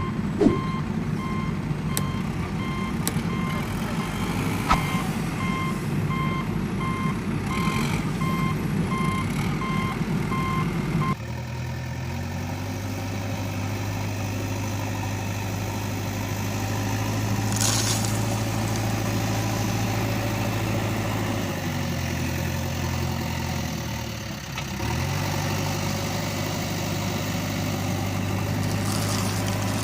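Repeating electronic reversing-alarm beeps over a rough machine rumble, cutting off suddenly about eleven seconds in. After that comes a steady low engine hum that sags and fades briefly before picking up again.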